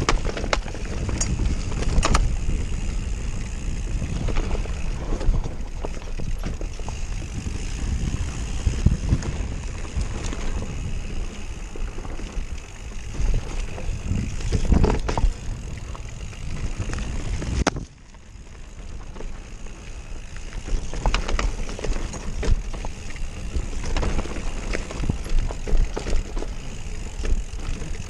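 A mountain bike descending a dirt trail at speed: wind buffeting the action camera's microphone, tyre noise on dirt, and the bike rattling and knocking over bumps and roots. The noise drops away suddenly about two-thirds through, then builds up again.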